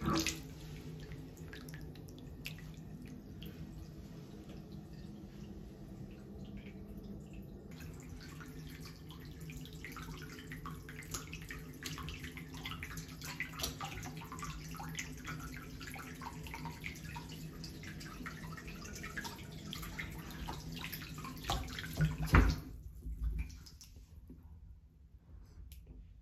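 Bath tap running into a shallow bathtub, a steady rush of water with small splashes and drips. It stops with a loud knock about 22 seconds in.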